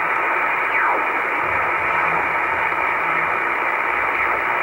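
Shortwave communications receiver in upper sideband being tuned across the 5 MHz band, giving steady hiss and static with nothing above about 3 kHz. About a second in, a faint whistle falls in pitch.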